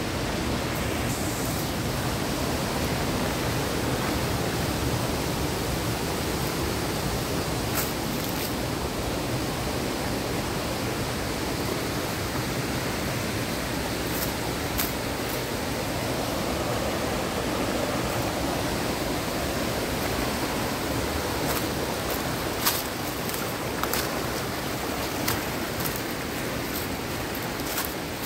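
Mountain stream rushing over rocks, a steady wash of water noise. Footsteps crunch on stones and dry leaves now and then, more often in the last few seconds.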